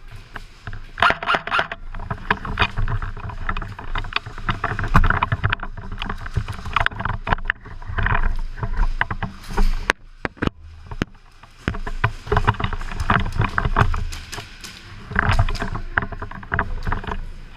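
Irregular rustling and crunching in uneven clusters, typical of an airsoft player moving on foot through brush with gear, with a brief lull about ten seconds in.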